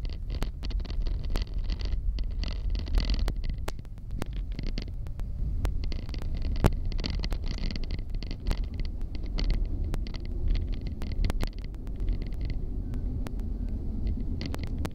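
Chicago 'L' 2600-series rapid transit car running on the rails, heard from inside: a steady low rumble with frequent sharp clicks and an on-and-off hiss higher up.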